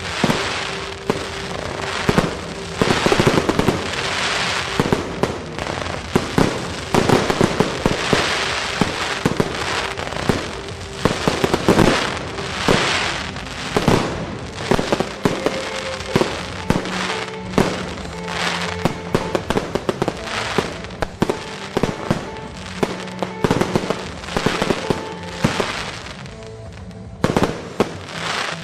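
Aerial fireworks barrage: shell after shell bursting in quick succession with crackling, over music with long held notes. The bursts thin out and stop near the end.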